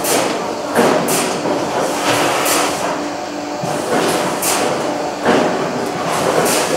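Injection molding machines running on a power-cord molding line: a steady mechanical hum with short hissing bursts every second or two.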